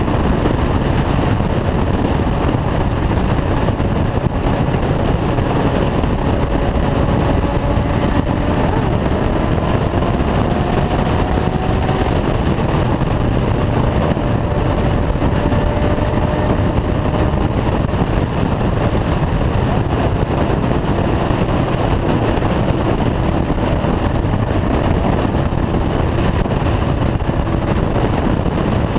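Motorcycle cruising at steady highway speed, heard from a camera mounted on the bike: a constant rush of wind and road noise with the engine's hum underneath, its pitch drifting slightly up about a third of the way in.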